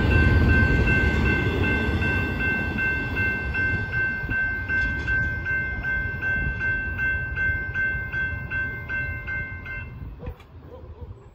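Double-stack container train's cars rolling past, a low rumble of wheels on rail that fades as the rear of the train moves away. A grade-crossing warning bell rings over it, pulsing about twice a second, and stops near the end as the crossing clears.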